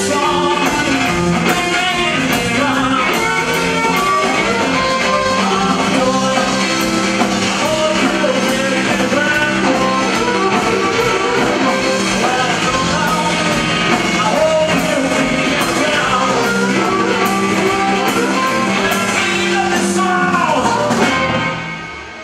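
Live blues-rock band playing: electric guitar, bass guitar and drums, with singing. The song ends near the end, with the sound falling away in the last second or so.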